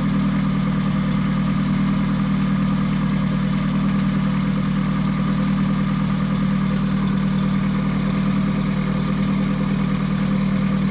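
VAZ 2110's four-cylinder petrol engine idling steadily, freshly started and still cold.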